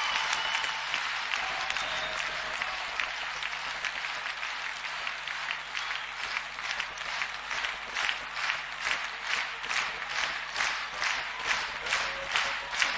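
Audience applause that turns, about halfway through, into rhythmic clapping in unison at about two claps a second.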